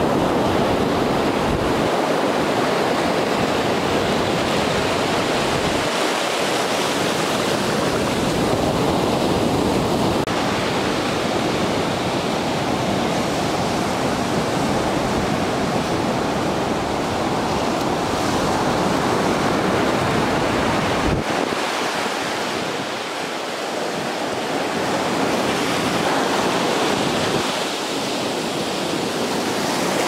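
Ocean surf breaking and washing up the sand, a steady rushing, with wind buffeting the microphone.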